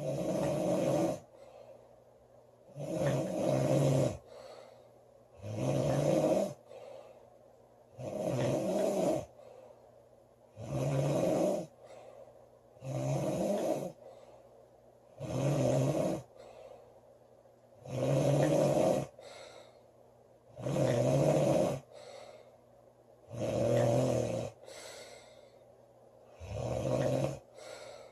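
A woman snoring loudly and evenly, with one snore about every two and a half seconds. Each snore lasts about a second and is a low, pitched drone.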